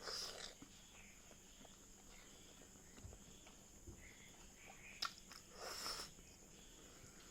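Faint mouth sounds of a person eating: soft chewing with small clicks, a breathy burst at the start and another about six seconds in, and a sharp click about five seconds in.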